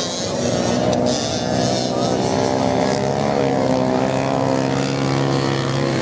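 Several off-road motorcycle engines running as the bikes race on a sand track, their engine notes rising and falling with the throttle.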